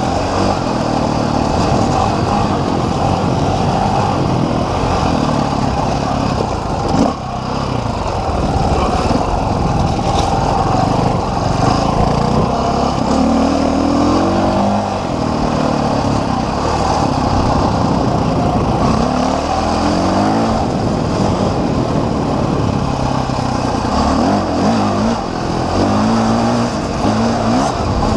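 Off-road motorcycle engine running continuously under varying throttle. Its pitch rises and falls several times as it is revved and shifted, over a steady rumbling noise.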